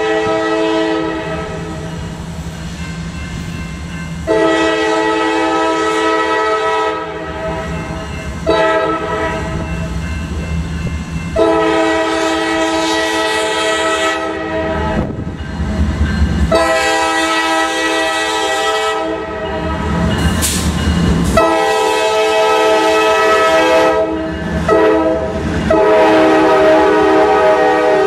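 Norfolk Southern diesel locomotive horn sounding the grade-crossing signal, long, long, short, long, played twice through, each blast a steady chord, over the low rumble of the locomotives. Near the end the boxcars rattle past on the rails.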